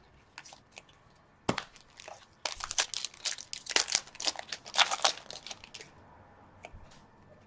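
Foil wrapper of a hockey card pack crinkling and tearing as it is opened, a run of sharp crackles from about a second and a half in until about six seconds in, after a few light clicks.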